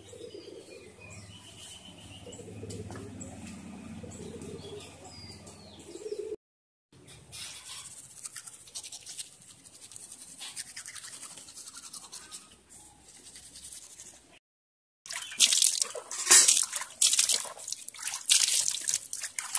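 A quiet stretch with a low hum and faint chirps, then, after a sudden cut, a toothbrush scrubbing teeth with a fast rasping. After another cut, the loudest part: running water splashing as hands throw it onto a face.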